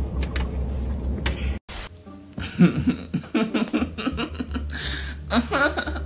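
Background music throughout; after a sudden brief dropout under two seconds in, a young man laughs over it in a run of short laughs.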